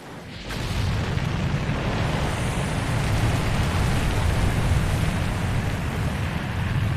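Space Shuttle's three liquid-fuelled main engines igniting on the launch pad: a loud, steady rocket roar with a heavy, deep rumble. It comes in suddenly and builds to full strength within the first second.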